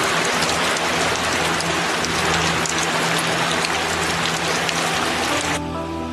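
Steady rain falling, with sharp individual drops striking hard surfaces. About five and a half seconds in, it cuts off suddenly, leaving soft background music.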